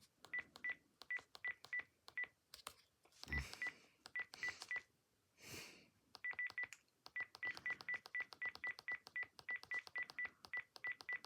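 Key beeps of a Panasonic KX-PRW120 cordless phone handset as its buttons are pressed over and over to scroll through the menus. They are short beeps at one pitch with light key clicks, about four a second, with a brief pause around the middle.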